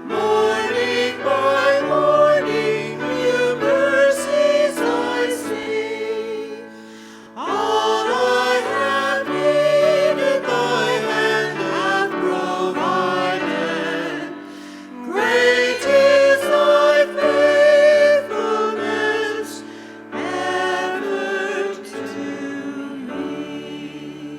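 Choir singing a church hymn in phrases with short breaks between them, fading away near the end.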